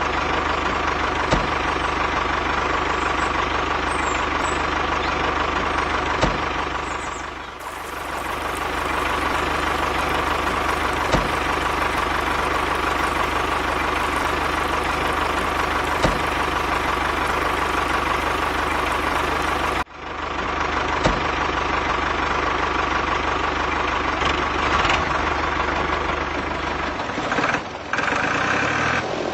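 Engine idling steadily, with a small tick about every five seconds; the sound breaks off abruptly and resumes twice.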